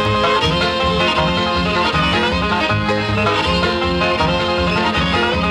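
Bluegrass-style music with a plucked banjo and guitar playing a steady, busy rhythm.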